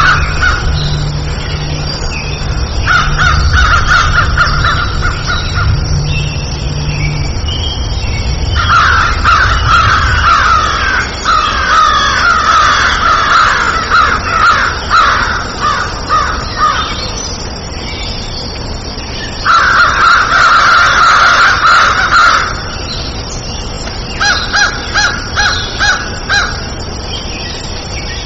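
Crows cawing in several bouts of rapid, harsh repeated calls, with short pauses between bouts; the longest bout runs about eight seconds near the middle.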